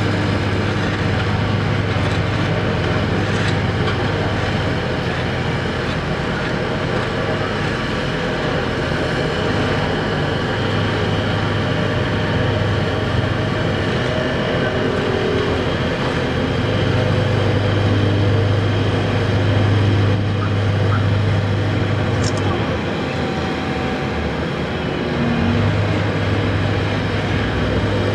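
Asphalt paver's diesel engine running steadily while laying asphalt, a continuous low drone.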